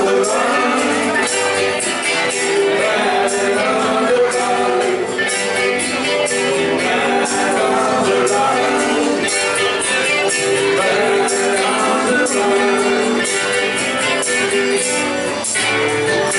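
Live acoustic music played by a small group: a strummed acoustic guitar and singing, with a steady beat of crisp, jingly percussive hits.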